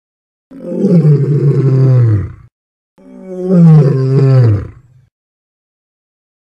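Two long big-cat roars, each about two seconds, falling in pitch, with a short gap between them.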